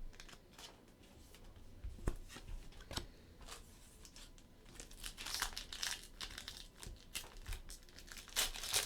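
A trading-card pack's foil wrapper crinkling and being torn open by hand, with a few light clicks first and the loudest crinkling bursts in the second half.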